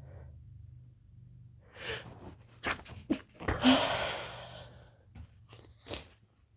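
A woman sneezing during a sneezing fit: a gasping inhale, then one loud sneeze about three and a half seconds in, followed by a few short breath sounds.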